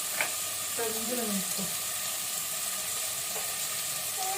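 Onions and chopped tomatoes sizzling steadily as they fry in hot oil in a pan, cooking down until soft and browned.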